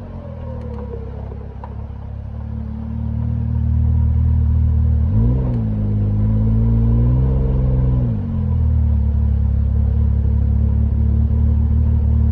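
A vehicle engine running steadily, revving up about five seconds in, holding the higher speed, then dropping back a few seconds later.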